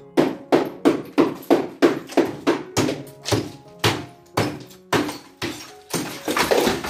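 A quick run of sharp knocks, about two to three a second, with the last few coming closer together near the end, over soft background music.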